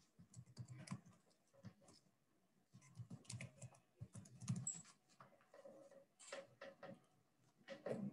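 Faint computer keyboard typing: quick key clicks in irregular bursts with short pauses between them.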